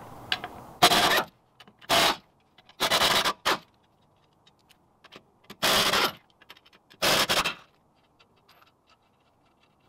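Pneumatic air impact wrench spinning off a wheel's lug nuts in five short bursts, with a pause of about two seconds after the third.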